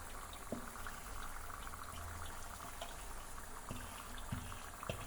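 Chicken pieces cooking in a pan of spicy masala, a steady quiet sizzle and bubble, with a few light knocks.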